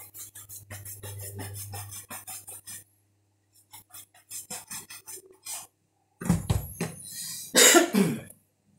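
Quick, rapid strokes of a bristle shoe brush buffing a wax-polished leather shoe to raise the shine, pausing briefly about three seconds in. About six seconds in there is a heavy thump, followed near the end by a short, louder burst of noise.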